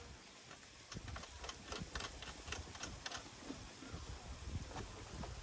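Faint, irregular light clicks and taps, a few a second, from small hardware and tools being handled during the mirror installation.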